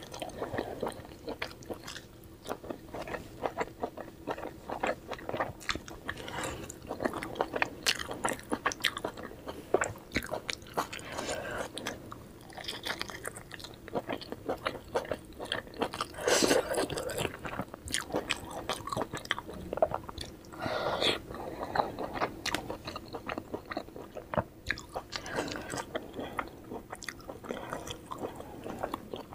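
Close-miked chewing and biting of steamed vegetable momos: a steady run of short mouth clicks and smacks, with a few louder bites now and then.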